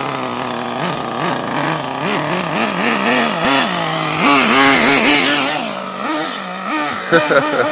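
Small glow-fuel two-stroke engine of an XTM nitro RC buggy, revving up and down over and over as the car is driven around, its pitch rising and falling with each throttle blip. The owner has struggled to tune this engine and is unsure whether it runs too lean or too rich.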